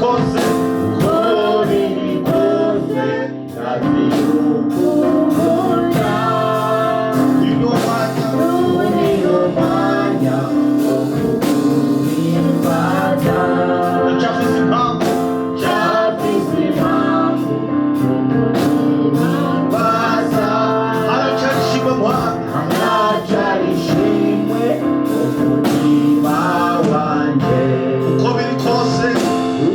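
Gospel praise-and-worship song: male and female voices singing over a band accompaniment.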